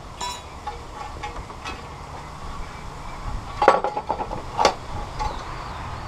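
Steel angle iron being handled: scattered clicks and light knocks, then two louder ringing metal clanks a little under a second apart past the middle, with wind rumbling on the microphone.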